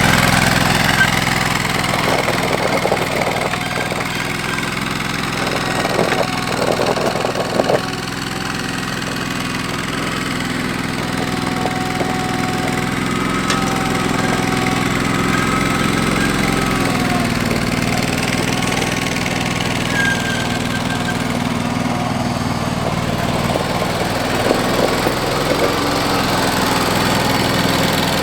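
John Deere garden tractor engine running steadily, its pitch rising slightly about two-thirds of the way through.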